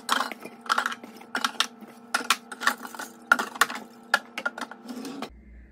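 Aluminium drink cans being set down one after another in a kitchen drawer, knocking and clinking against each other and the drawer, about two or three sharp clicks a second, stopping near the end.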